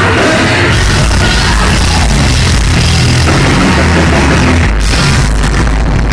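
A live rock band playing loud, heard through a rough, muddy concert recording.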